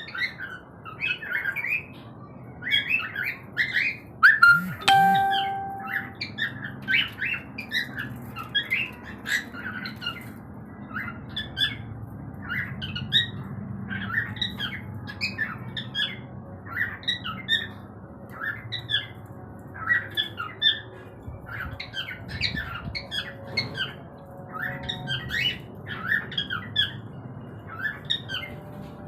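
A colony of cockatiels calling continuously: many short chirps and squawks overlapping one another, with a louder burst of calls about five seconds in.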